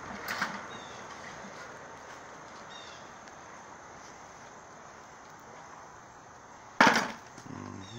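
Steady outdoor background noise with a few faint high chirps, broken near the end by one sharp, loud bang.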